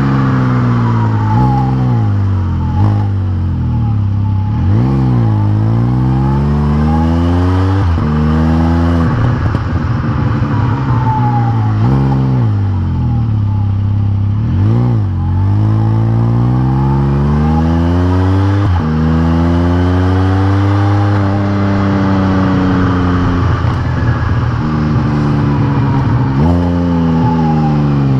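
Can-Am Spyder RT Limited's Rotax 1330 three-cylinder engine through an RLS Crusher series aftermarket muffler, accelerating on the road and shifting through the gears. The exhaust note rises in pitch and drops at each shift, several times over, with easing off and speeding up between.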